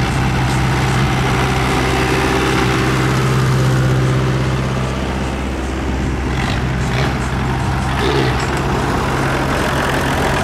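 Tractor engine running steadily, its low note easing back a little about five seconds in and then carrying on.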